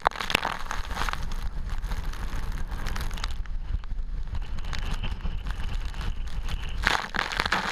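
Typhoon wind buffeting the microphone in a steady low rumble, with crackling rain and spray against it that grows brighter and louder about seven seconds in.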